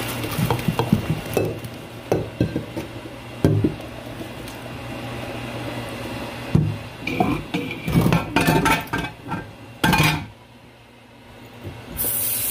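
Boiled shrimp and their hot cooking water poured from a pot into a plastic colander in a stainless-steel sink, draining the shrimp. The pot and colander then knock and clatter against the sink. A loud steady hiss starts near the end.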